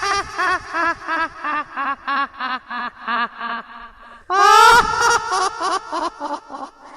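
High-pitched horror-style cackling laugh: a rising shriek breaking into a run of quick 'ha-ha' pulses, about four a second, that fade and drop in pitch. A second cackle starts about four seconds in.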